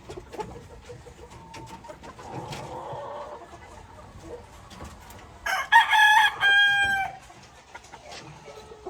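A gamefowl rooster crowing loudly once, about five and a half seconds in, a long call lasting about a second and a half. A fainter crow from farther off comes earlier, about two seconds in.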